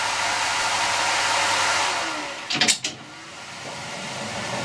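Colchester Student lathe's spindle and gearing running with a steady whir, driven by its three-phase motor through a variable frequency drive. It winds down as the Safti-Lok start/stop and reverse handle is moved, with a couple of sharp clunks about two and a half seconds in. The running sound then builds again as the spindle picks up speed in the other direction.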